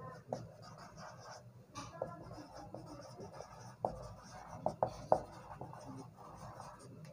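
Marker pen writing on a whiteboard: faint scratching strokes broken by a few short ticks as the tip meets the board.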